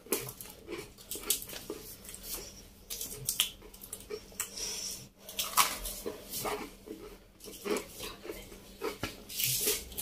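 Close-up crunching and chewing of dry, sweet rusk toast: irregular sharp crunches as pieces are bitten off and chewed.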